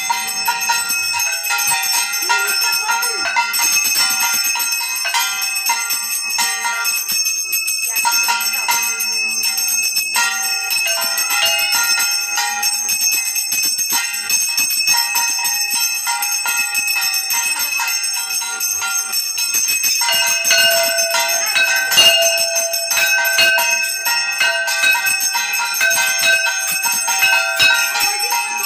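Puja hand bells ringing continuously, a dense mix of many steady metallic tones. About two-thirds of the way through, a lower-pitched ringing joins in.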